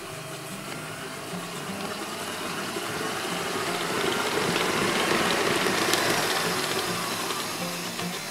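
Electric stand mixer running, its flat beater creaming butter and sugar in a stainless steel bowl. The motor and beater noise is steady, growing louder toward the middle and easing off again.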